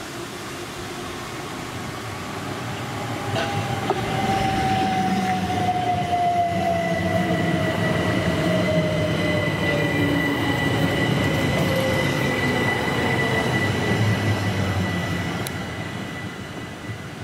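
Southern Class 377 Electrostar electric multiple unit running past along the platform, growing louder and then fading as it goes by. An electric motor whine falls slowly in pitch while it passes, over a steady high tone and rumbling wheel noise.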